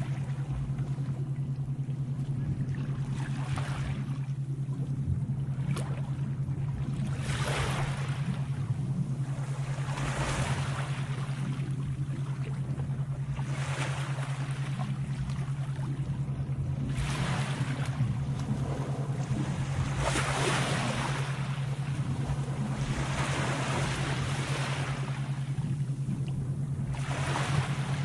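Sea waves washing in one after another, a swell of surf every three to four seconds, over a steady low hum.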